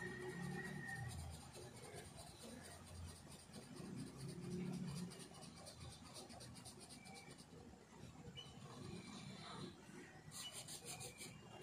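Faint scratching of a felt-tip marker on paper in short repeated strokes as a drawing is coloured in, with a quicker run of strokes near the end.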